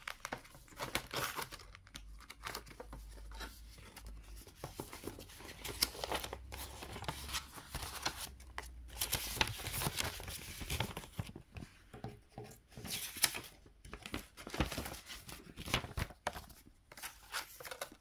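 Paper rustling and crinkling in irregular bursts as banknotes are slipped into cash envelopes and the folder's envelope pages are turned.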